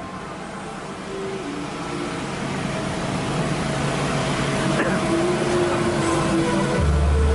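A steady engine running, heard under faint voices, slowly growing louder; a deep low hum comes in near the end.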